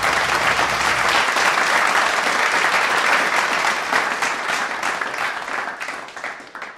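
Audience applause: dense clapping from many hands that thins and fades away near the end.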